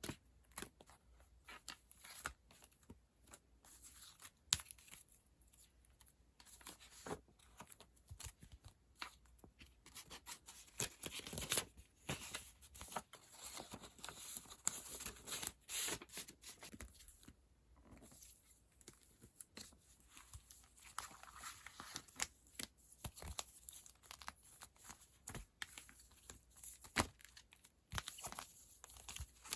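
Hands tearing and crinkling packing materials, with irregular rustles and many small clicks and taps, in a small room.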